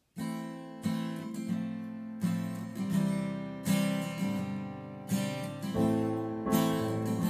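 Instrumental intro of a worship song: acoustic guitar strumming chords, with strong strums about once a second. The music starts suddenly out of silence just after the start.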